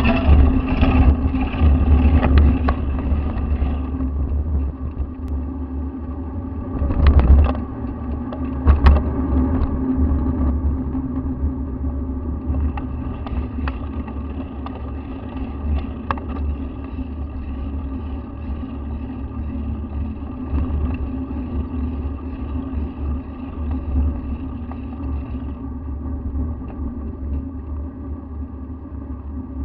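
Wind and road noise picked up by a handlebar-mounted action camera on a moving bicycle: a steady low rumble with a constant hum, heavier for the first few seconds. There are a couple of sharper knocks from bumps in the road about seven and nine seconds in.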